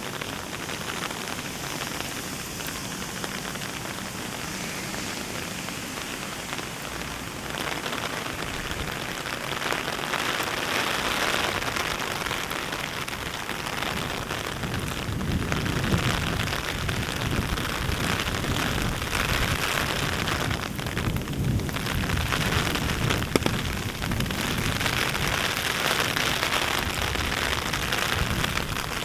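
Heavy rain falling steadily, growing louder about ten seconds in.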